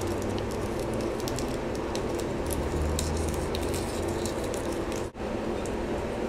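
Clear plastic tape being pulled along and pressed down onto a copper circuit board, with light crinkling and crackling over a steady low hum.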